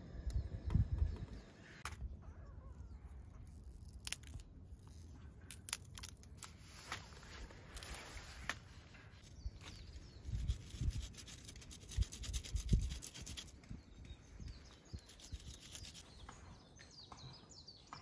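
Food preparation: a knife cutting through kamaboko fish cake onto a wooden board, then a fresh wasabi root rubbed on a small metal grater with soft rasping scrapes, amid scattered clicks and a few low knocks.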